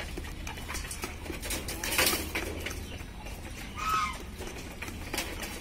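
Farmyard ambience: a steady low rumble with scattered small clicks and rustles, a louder rustle about two seconds in, and a short bird chirp around four seconds in.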